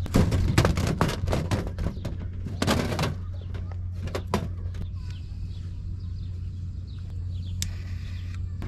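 Gear being handled during camp setup: a quick run of knocks, clicks and rustling, busiest in the first three seconds, then a few scattered clicks, over a steady low hum.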